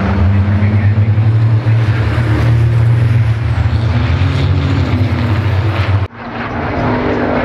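Racing trucks' diesel engines running hard as they pass on the circuit, a deep, steady engine note. About six seconds in the sound cuts off abruptly and another engine sound rises in.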